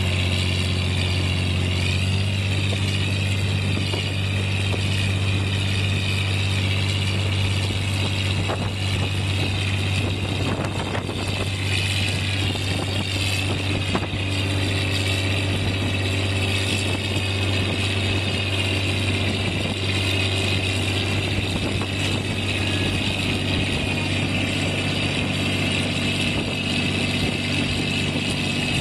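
Tractor engine running steadily under load as it hauls a boat trailer up a slipway: a continuous low hum with a higher, slowly wavering whine above it.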